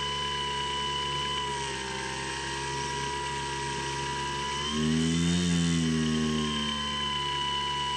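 Skywalker X7 flying wing's electric motor and pusher propeller running with a steady whine. About five seconds in, it briefly swells louder and higher in pitch, then settles back.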